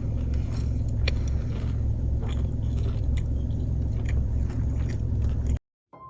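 Crunchy bites and chewing of a battered Korean hot dog close to the microphone, with scattered crisp clicks over a steady low rumble. The sound cuts off abruptly near the end.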